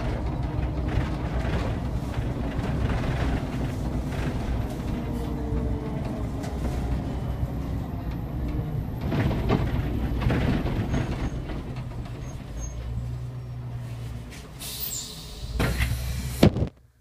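Inside a city bus on the move: a steady low drive hum with road rumble as it slows toward a stop. Near the end come a burst of hissing and a few sharp knocks, then the sound cuts off abruptly.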